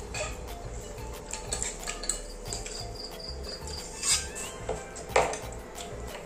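Forks clinking and scraping on plates of noodles, with two louder clinks about four and five seconds in, over a faint steady hum.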